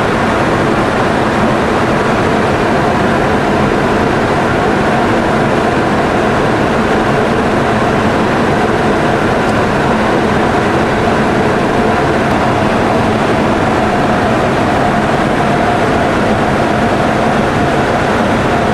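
Steady wind and engine noise inside a Boeing 707's flight deck in flight, an even rush with a low hum and a higher tone held constant under it.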